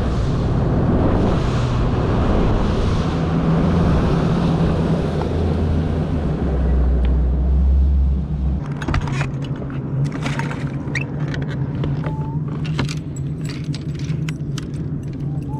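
Bass boat's outboard motor running at speed, with wind and water rushing past the hull, until the throttle is cut a little past halfway and the motor drops back to a low idle. Over the idle come short clicks and clatter of fishing rods and reels being handled on the deck.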